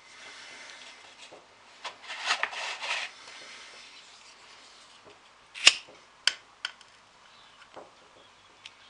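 Green disposable lighter being handled and struck: a soft hiss at first, a rasping scrape about two seconds in, then a few sharp clicks, the loudest about halfway through.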